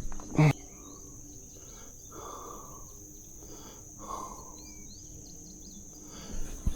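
Outdoor ambience with a steady high-pitched insect drone throughout. A short, loud thump about half a second in is the loudest sound, and two soft rustling swishes follow later.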